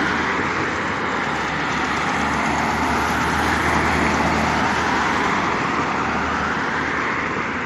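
Road traffic going by: a steady rush of car noise.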